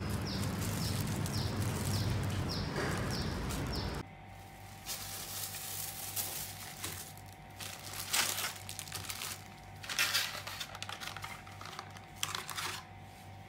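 Street traffic noise for the first few seconds. Then plastic bread bags crinkle and rustle in irregular bursts as they are handled and set down on a table, over a steady faint hum.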